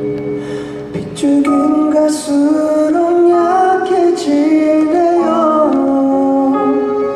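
Male singer's voice singing a slow, sustained melody live over instrumental accompaniment; the voice comes in about a second in, after held chords.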